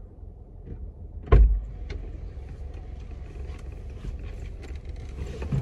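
Steady low rumble of a parked car's engine idling, heard from inside the cabin, with one dull thump about a second in and a few light clicks.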